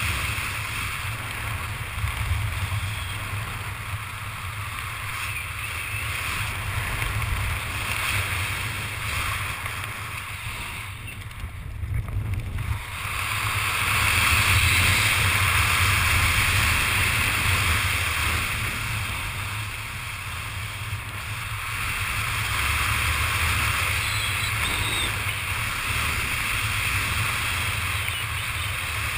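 Wind rushing over a helmet-mounted GoPro HD camera during a descent under an open parachute canopy: a steady rushing noise with a low rumble. It drops for a couple of seconds near the middle, then swells louder again.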